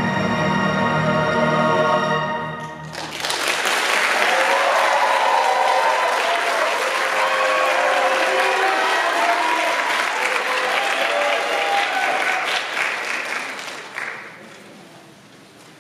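Music ends on a held chord about three seconds in, and the audience breaks into applause and cheering, which dies away near the end.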